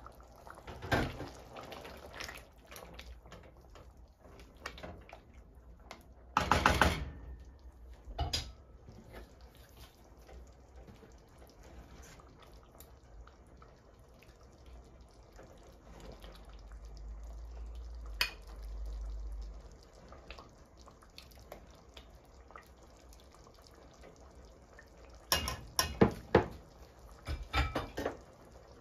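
A metal ladle clinking and scraping in a stainless steel pot of chili as it is scooped out, with a loud scrape about seven seconds in and a run of sharp clinks near the end.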